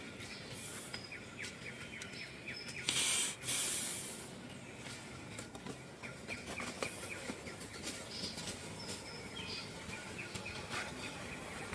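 Woodland ambience of small birds chirping in quick repeated notes, with a few thin high whistles. A short loud burst of hissing noise comes about three seconds in.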